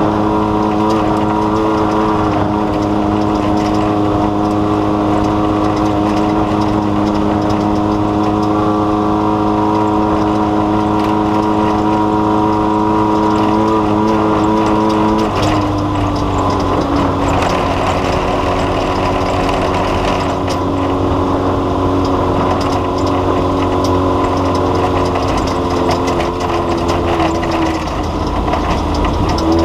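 Engine running at a steady speed, its pitch stepping down about halfway through and wavering again near the end.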